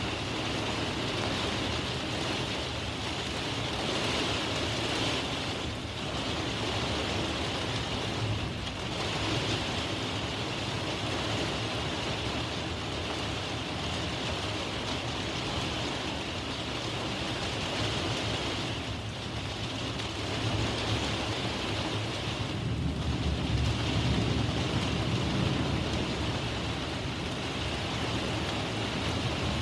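Steady rain from a thunderstorm, with low rolling thunder that swells about three-quarters of the way through.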